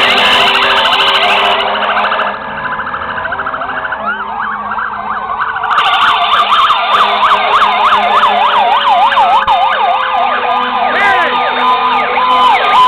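Several fire truck sirens sounding at once, overlapping: slow wails and fast yelping sweeps, with a lower tone slowly falling in pitch. Near the end a hi-lo two-tone siren joins in, and the whole gets louder about halfway through after a brief dip.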